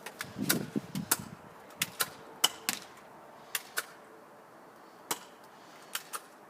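Airsoft gun firing: a dozen or so sharp snaps at an uneven pace, often in pairs about a quarter second apart.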